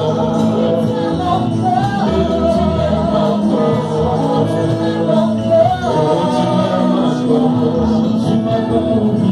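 A gospel worship song: a woman singing lead into a microphone with held, gliding notes, over steady instrumental accompaniment.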